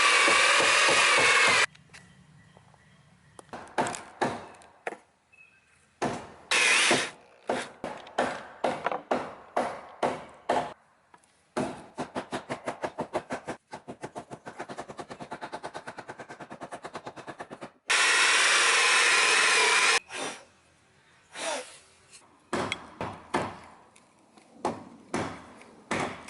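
Electric drill driving screws in bursts: two long runs at full speed, one near the start and one about two thirds of the way in, and a shorter run in between. Around these come scattered sharp knocks and a stretch of rapid, even clicking.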